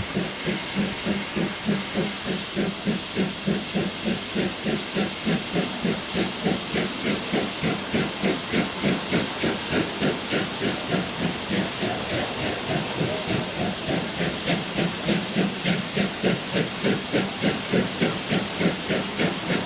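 Steam locomotive working steadily, its exhaust beats coming evenly at about three to four a second over a steady steam hiss.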